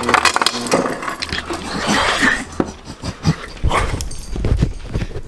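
Refrigerator door ice dispenser clattering ice cubes into a cupped hand, with a man's pained, whimpering noises from the burn of a Carolina Reaper pepper. Heavy thumps and rumble follow near the end as he hurries off.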